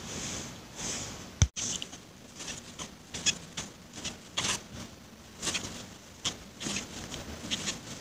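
Crochet hook working polyester yarn close to the microphone: a run of short squeaks and rustles as the yarn is pulled through the stitches, with one thump about one and a half seconds in.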